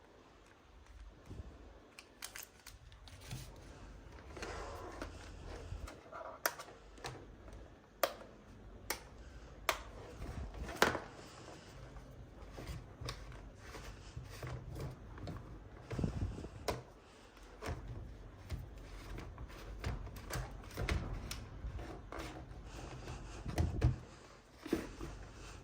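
Irregular clicks and light knocks of small objects being handled, over a faint low rumble.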